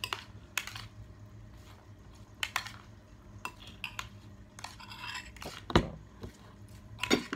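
Metal spoons clinking and scraping against bowls and plates as a cucumber-and-tomato salad is tossed and food is eaten, in irregular clinks with a louder knock about two thirds of the way through.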